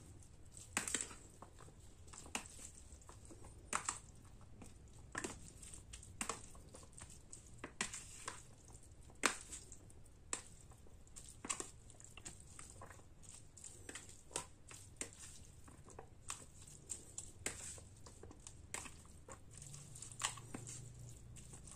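Metal spoon stirring cooked spaghetti in a plastic food container to mix in the seasoning: faint, irregular clicks and scrapes of the spoon against the container, about one or two a second.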